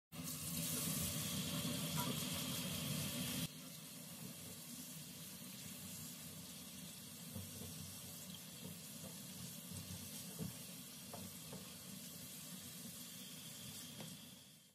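Tap water running into a stainless steel sink over a colander of chili peppers as hands rinse them. It is a steady splashing, louder for the first few seconds and then softer, with a few faint knocks as the peppers are turned.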